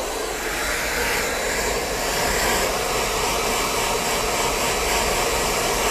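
Hair dryer fitted with a diffuser blowing steadily on wet curly hair: an even rush of air with a faint high whine.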